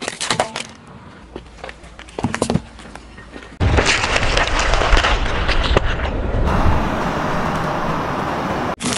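A car tyre rolling over a plastic object, with scattered sharp clicks and cracks. After a cut about three and a half seconds in, a whole pineapple is crushed under the tyre: a loud, dense crunching and rushing noise with a low rumble, which changes to a smoother hiss about two thirds of the way through.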